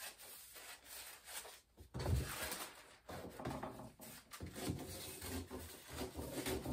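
Dressmaking scissors cutting through a paper pattern laid on fabric, in irregular scraping snips with the paper rustling and rubbing on the table.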